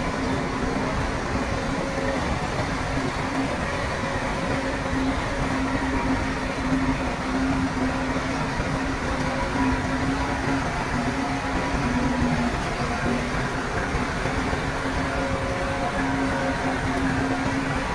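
Bulldozer's diesel engine running steadily under load, with a low engine tone that wavers slightly in pitch over heavy mechanical noise.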